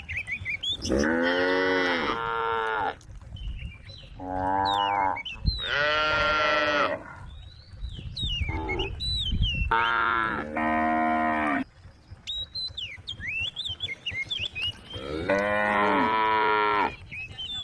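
Several cows mooing in turn, about six long, drawn-out calls with pauses between them. Some of the calls come close together and overlap.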